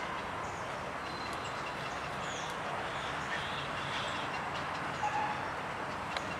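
Steady outdoor background din with short, high bird chirps now and then; a brief louder sound about five seconds in.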